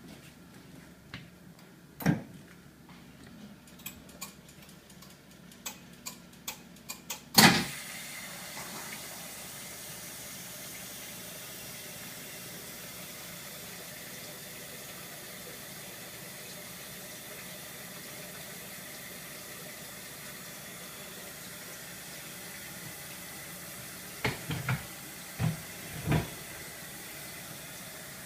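1968 Frigidaire top-loading dishwasher being started: a few clicks and knocks, a loud clunk about seven seconds in, then water running steadily into the tub, with a few knocks near the end.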